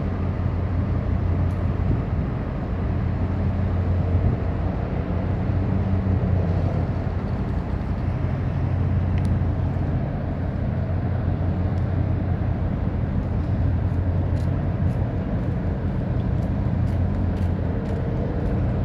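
A large engine's steady low drone with a wind-like rush, unchanging throughout.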